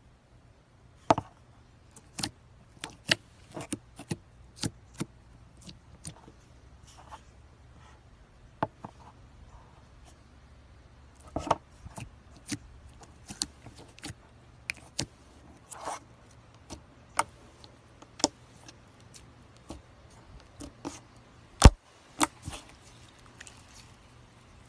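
Slime being handled and pressed by hand, giving irregular sharp pops and clicks, one every second or so; the loudest pop comes near the end.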